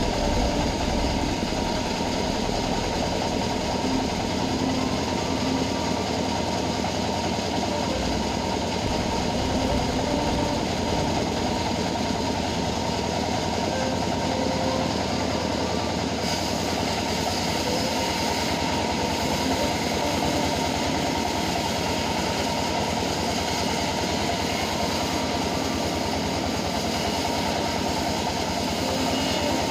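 A homemade band sawmill running steadily, a constant mechanical drone that holds the same level throughout.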